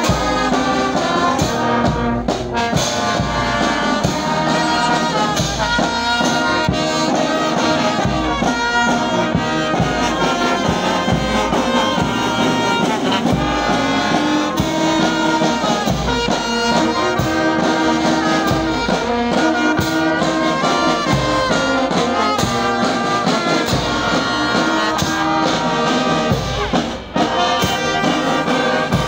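School brass band playing: trumpets and larger brass horns sounding sustained notes over a bass drum beat, with a brief break about 27 seconds in.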